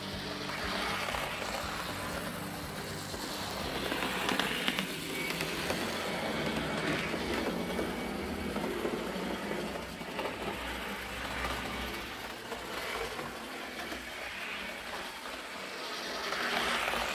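LIMA M-636 HO-scale model locomotive with a Ringfield motor running around a layout: a steady whir of motor, gears and wheels on the rails, getting louder about four seconds in and again near the end. It runs smoothly, freshly serviced and lubricated.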